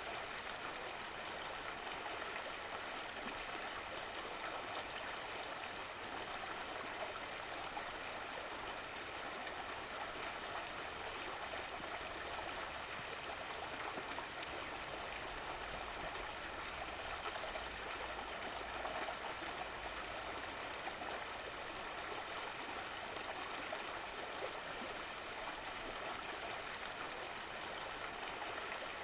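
Running water of a stream flowing steadily, an even rushing with a light trickle.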